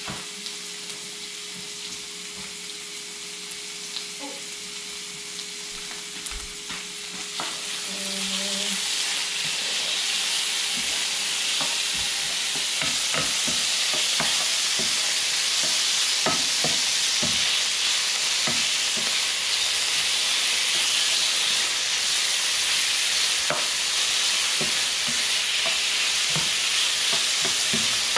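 Sliced pork and onion frying in a nonstick pan: a steady sizzle that grows louder about eight to ten seconds in, with short scrapes and taps of a spatula stirring through the meat.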